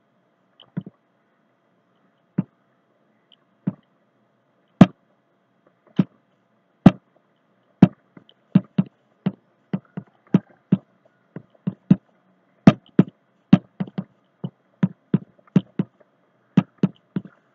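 Steel plate lid, weighted with water, knocking on the rim of a pot of boiling chicken gravy as steam lifts it and lets it drop. Single knocks about a second apart at first, coming faster to two or three a second from about halfway on.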